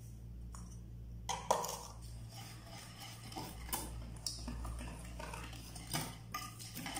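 Wire whisk clinking and scraping against a stainless steel bowl while stirring dry flour, cornstarch and sugar together. It gives irregular light taps, starting about a second in.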